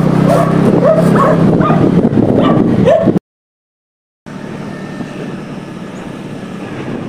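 Motorcycle engine running, loud, with short rising-and-falling calls over it. About three seconds in, everything cuts off for about a second; then a quieter steady riding noise with wind follows.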